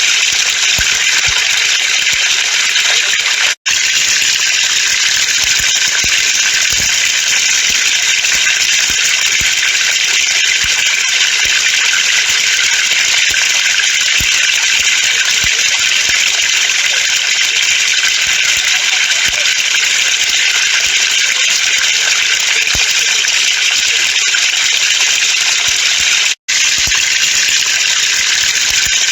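Water falling from a pipe in a steady hissing stream, with faint ticks of drops underneath. The sound cuts out for an instant twice: about three and a half seconds in, and a few seconds before the end.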